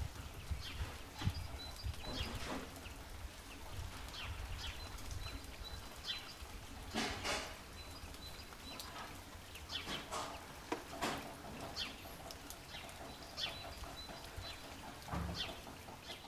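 Wild birds chirping and calling in many short, scattered notes, including a repeated high note, over a faint low rumble.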